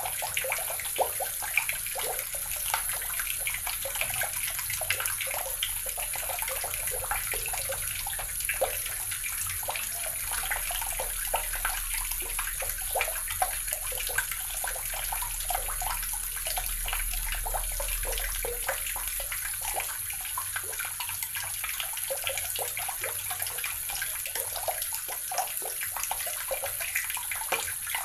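Water running steadily from a tap, splashing and trickling into a basin or tub.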